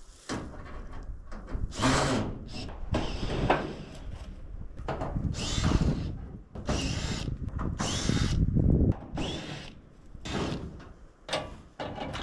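Cordless drill backing screws out of corrugated metal roofing panels, in about seven short runs of a second or so each, the motor's pitch rising and falling within some runs.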